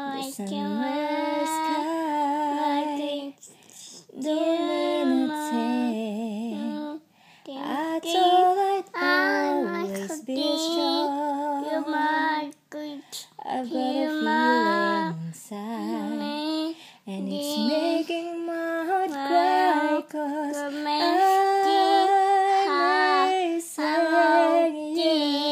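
A woman singing a slow ballad unaccompanied, long held notes with a wavering vibrato, in phrases a few seconds long with short breaks for breath.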